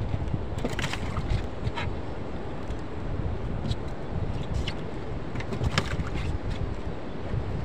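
Wind buffeting the microphone over water slapping against a small outrigger boat's hull, steady and rough, with a few sharp knocks and clicks scattered through.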